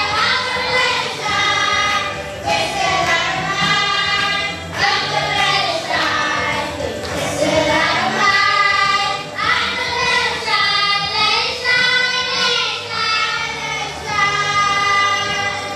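A group of children singing a song together into handheld microphones, in phrases with short breaks between them.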